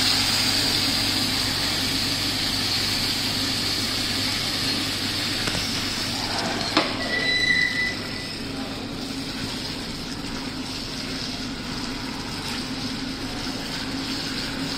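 Tomato sauce sizzling and bubbling in a hot nonstick pan, the hiss strongest at first and slowly dying down. About seven seconds in there is a knock as the pan is set down on an induction cooktop, then a short beep.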